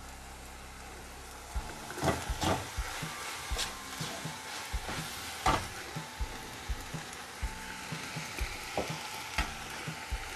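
Pasta and vegetable filling sizzling in a frying pan. From about one and a half seconds in, a series of sharp clinks and scrapes against the pan as the steel spoon and pasta are worked in.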